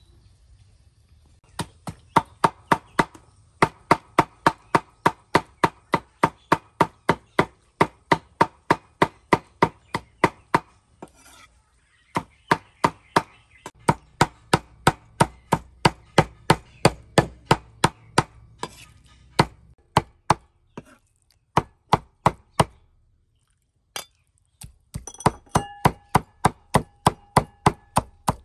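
Cleaver mincing raw pork on a thick wooden chopping block: quick, regular chops at about four strokes a second, stopping briefly twice.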